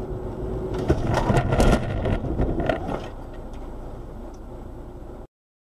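Car collision heard from inside the car: steady road noise, then about a second in a cluster of loud crunching impacts over about two seconds as the front end is crushed, leaving its bonnet buckled. Quieter road noise follows, and the sound cuts off suddenly near the end.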